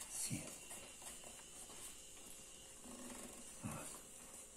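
Faint rustling and handling of rolled paper tubes as they are bent and tucked into a woven basket rim, with a couple of soft knocks.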